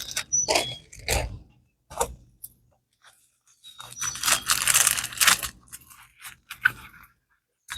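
Plastic packaging of a diamond painting kit crinkling and rustling as it is handled and opened. It comes in short bursts, with a longer stretch of crinkling about four to five seconds in.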